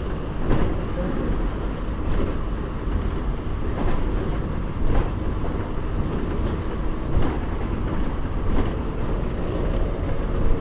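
A bus in motion heard from on board: the engine and road noise make a steady low rumble, with sharp knocks and rattles every second or two and a brief hiss near the end.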